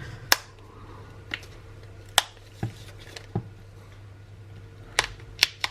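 Sharp plastic clicks and snaps, about nine at irregular intervals, as a pry tool works around the edge of a Samsung Galaxy A13's plastic back cover, prising it open.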